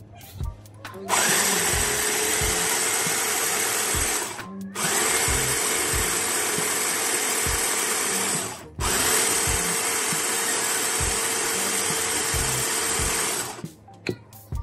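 Electric push-button mini chopper whirring as it whips heavy cream until it thickens. The motor runs in three stretches of about four seconds each, each one rising quickly in pitch as it starts, with short breaks between them. There are a few clicks from handling the bowl before it starts and after it stops.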